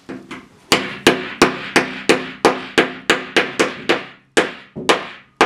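A hammer striking repeatedly, about three blows a second with a brief ringing after each, tapping plastic bushings into the holes of a laminated particleboard desk panel. A couple of light taps come first, then about a dozen firm blows.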